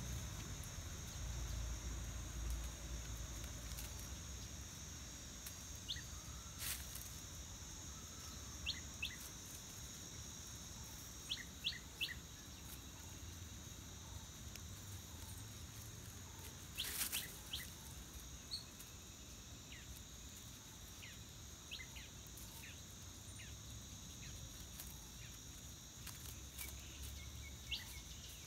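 Forest ambience: a steady high insect drone, with short thin bird chirps scattered through and a few sharp taps or rustles, the loudest about a third and just over halfway through.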